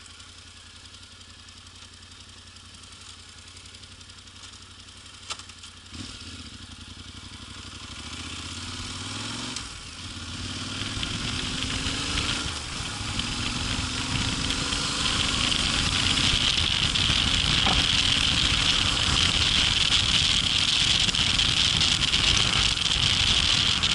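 Yamaha Ténéré 700's parallel-twin engine with a quiet low hum at first, then about six seconds in pulling away and accelerating up through the gears, its pitch rising and dropping at each of three shifts. As speed builds, a loud steady rush of wind noise takes over.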